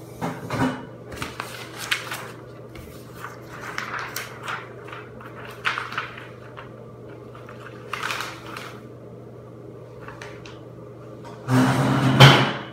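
Scattered rustles, knocks and scrapes of plastic drink bottles and a sheet of paper being picked up and handled, over a steady low hum. A louder, longer burst of handling noise comes near the end.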